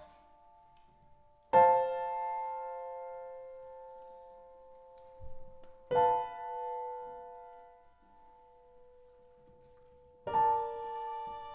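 Piano playing a slow passage of three soft chords, each struck about four seconds apart and left to ring out and fade.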